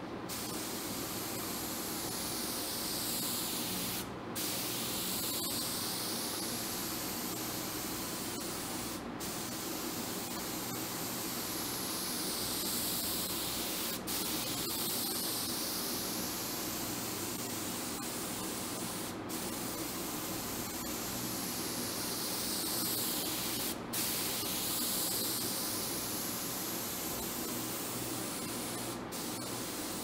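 HVLP spray gun hissing steadily as it sprays pre-catalysed lacquer, with a steady low hum underneath. The hiss breaks off briefly about every five seconds, six times.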